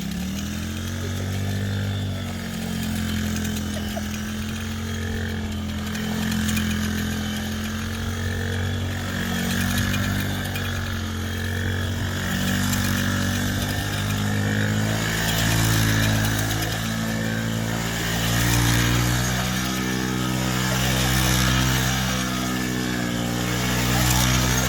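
Small 110cc four-stroke engine of a children's mini ATV running steadily, its pitch rising and falling gently with the throttle.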